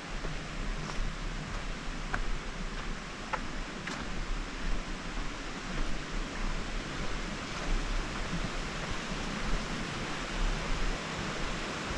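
Footsteps on a dirt and gravel trail with a few light clicks of trekking poles in the first four seconds, over a steady rushing noise.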